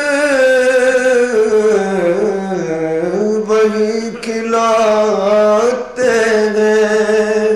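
A man singing an Urdu naat solo, drawing out long notes with winding melismatic turns. There is a short breath break about six seconds in.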